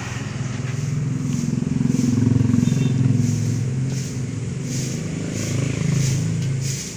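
A motor vehicle's engine running with a low steady drone, growing louder over the first two to three seconds and then easing off, as of a vehicle passing by.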